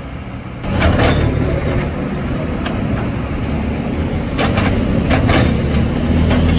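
Kobelco SK200 hydraulic excavator working: its diesel engine running steadily under load while the bucket digs and scrapes through soil and dry grass. The sound gets louder under a second in, with short scraping crackles then and again around four to five seconds in.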